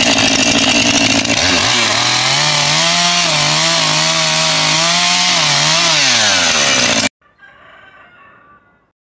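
Chainsaw running at full throttle. About a second and a half in its pitch rises and then wavers as it cuts into wood, and it falls back near six seconds as the throttle is let off. The sound stops abruptly about seven seconds in, leaving only faint background sound.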